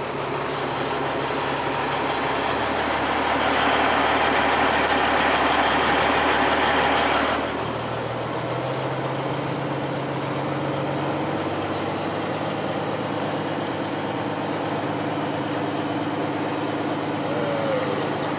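Engine of a manual-transmission vehicle running in first gear at low speed, heard from inside the cab. A louder hiss comes in about three seconds in and stops about four seconds later, and the engine note slowly rises in the second half.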